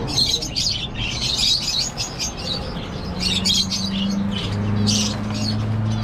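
Many caged budgerigars chirping and chattering rapidly and continuously. A steady low hum comes in about three seconds in.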